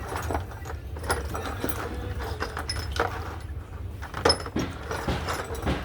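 Irregular metallic clicks and knocks of tools and engine parts being handled, the loudest about four seconds in, over a steady low hum.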